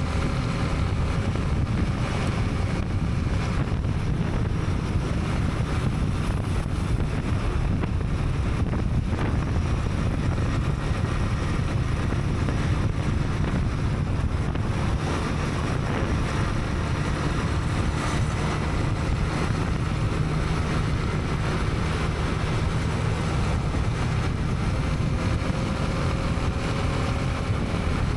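Honda CB300R's single-cylinder engine running steadily under way, with wind and road noise.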